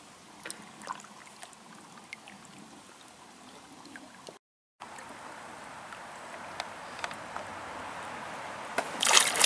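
Faint water trickles and small clicks from a kayak on a creek. After a brief dropout partway through, a wash of water noise grows steadily louder, ending in louder splashing near the end.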